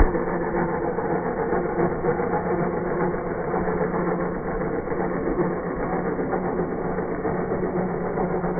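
Homemade toy tractor's small motor and chain drive running steadily as it pulls a loaded trailer, a constant mechanical hum.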